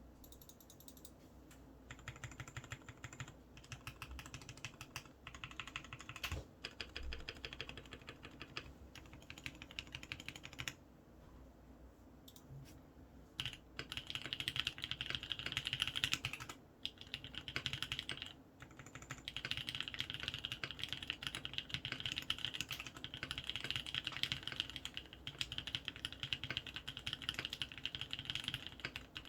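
Typing on a Matrix Noah aluminium mechanical keyboard with lubed Kailh Cream switches and ePBT keycaps: rapid, continuous keystrokes starting about two seconds in, pausing for a couple of seconds near the middle and briefly again a little later.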